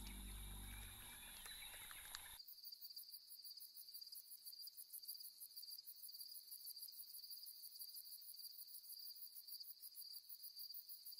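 Music fades out over the first two seconds; then a faint, steady, high-pitched chorus of night insects comes in, trilling in rapid, even pulses.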